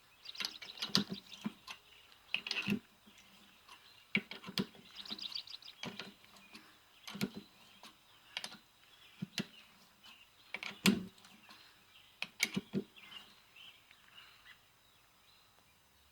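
A 1/4-inch threading die, turned with a wrench, cutting threads on an oiled metal rod: irregular sharp clicks every second or so, mixed with short scraping squeaks.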